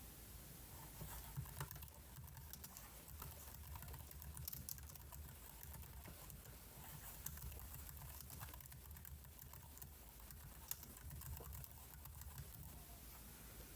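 Faint, irregular clicking of computer keyboard keys, a few scattered taps at a time, over a low steady hum.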